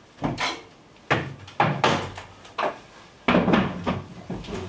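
A string of knocks and clunks from a closet door being opened and a seat being brought over and set down at a wooden table, the heaviest bumps a little past three seconds in.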